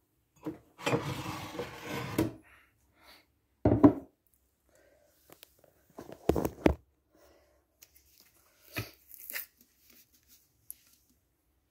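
Handling noises on a kitchen counter: a rustling, scraping sound lasting about a second and a half, then a few short knocks and clicks.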